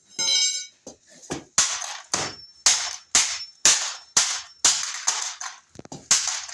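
Broken plastic toy pump shotgun being smashed: a run of about ten sharp cracking blows, roughly two a second.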